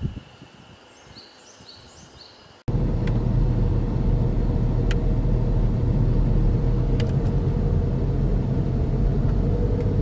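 Car driving slowly along a paved road, heard from inside the car: a steady low rumble of engine and tyres that starts abruptly about two and a half seconds in, after a quiet stretch of faint outdoor ambience.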